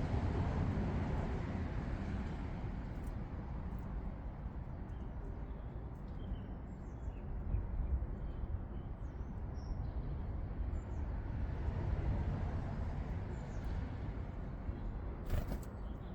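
Steady low rumble of distant road traffic, louder at first as a vehicle passes and then easing off. A few short, faint chirps of small garden birds come through in the middle, and there is a sharp click near the end.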